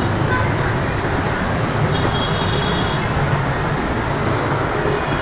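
Steady road traffic noise from a busy city street, a continuous low rumble of passing engines and tyres.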